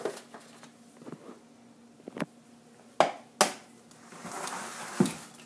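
Eggs tapped against the rim of a glass chopper bowl to crack them: several sharp knocks spread over a few seconds.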